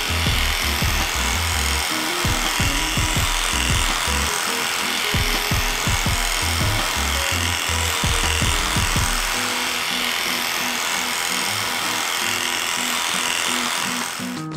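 Electric dog clippers running steadily, shaving through a heavily matted coat, under background music.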